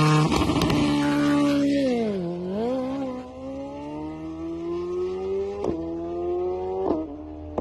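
BMW sportbike engine at high revs, accelerating away into the distance. The engine note falls about two seconds in, then climbs slowly as it fades, with two brief sharp cracks near the end.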